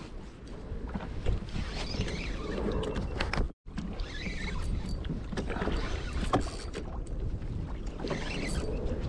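Water sounds around a fishing kayak at sea, an even wash with scattered small knocks and clicks, cut by a brief gap of silence about three and a half seconds in.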